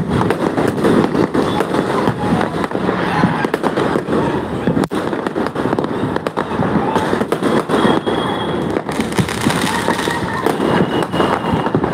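Diwali fireworks and firecrackers going off all around at once: a dense, continuous crackle of many overlapping bangs and pops, with a few short high whistles mixed in.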